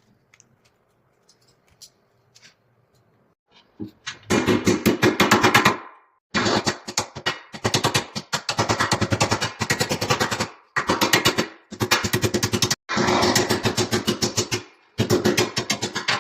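Rapid mechanical rattling, about a dozen strokes a second, in runs of one to two seconds with short stops, starting about four seconds in after near quiet.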